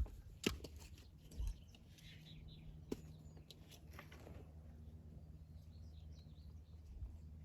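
Faint birds chirping over a steady low hum, with a few light clicks and knocks in the first half.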